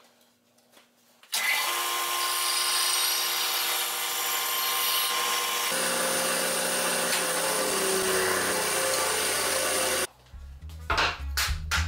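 Bandsaw running and cutting a small plywood piece. It is a steady machine sound with several held tones that starts suddenly about a second in and shifts about halfway through. It cuts off sharply near the end as music with a low beat comes in.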